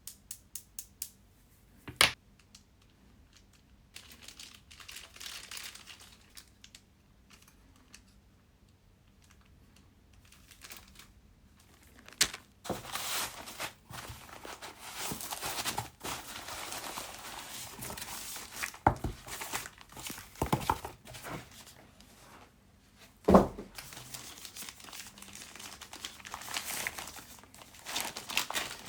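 Packaging being unwrapped by hand: crinkling and tearing of wrapping, with a few sharp clicks at the start and several knocks, the loudest a thump a little past two thirds through.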